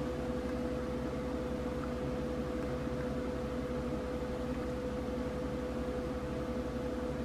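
A steady background hum with a constant mid-pitched tone running through it, without change.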